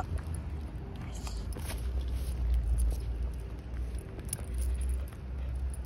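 Low rumble of wind buffeting the microphone while walking, with light footsteps and scuffs on asphalt and a brief rising squeak at the very start.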